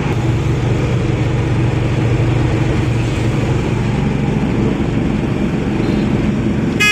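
Steady engine and road noise inside the cab of a vehicle driving along a highway. Right at the end there is a short horn blast.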